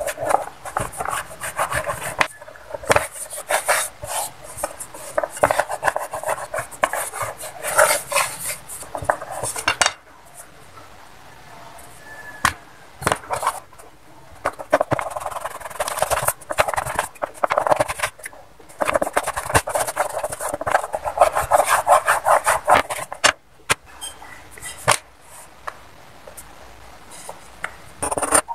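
Wooden rolling pin rolling out flour-dusted egg-noodle dough on a wooden board: a rapid rubbing clatter in several long bouts, with quieter pauses between them.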